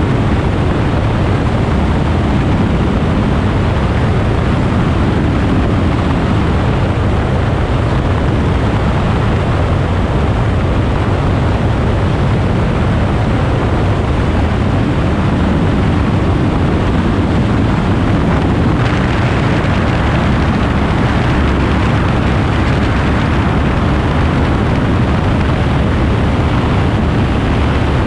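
Steady rush of wind and engine-and-propeller drone from a light airplane in flight on approach, picked up by a camera mounted on the outside of the aircraft, so the wind on the microphone is heavy and dominates the low end.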